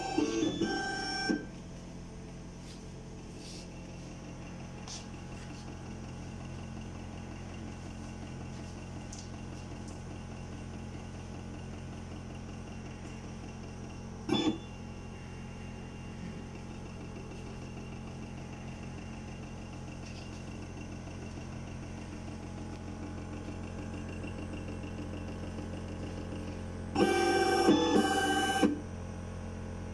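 Sirona inLab MC XL dental milling unit running its calibration cycle: a steady machine hum, broken by louder, high whining runs of the motors for about a second and a half just after the start and again near the end, with a brief one midway.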